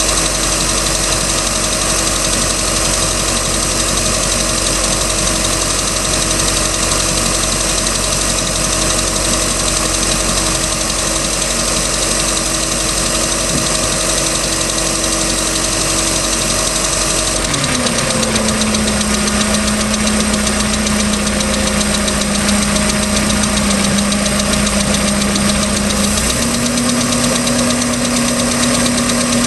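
Mercruiser 3.0L inline-four marine engine running at idle with a persistent ticking noise of unknown cause. Its pitch drops sharply about two-thirds of the way through, then rises slightly near the end.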